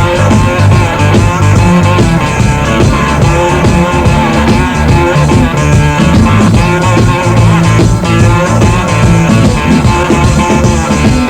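Loud rock and roll record playing with guitar, bass and drums, and no singing.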